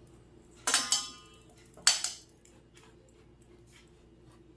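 Metal kitchen utensils knocking and clinking against a mixing bowl while flour is sifted and mixed: two quick pairs of knocks, the first ringing briefly.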